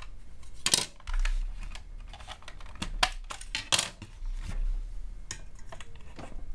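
Scattered sharp plastic clicks and knocks as snap-on side panels are popped off a plastic toy tricorder case and the case is handled, the loudest about a second in and again around three to four seconds in.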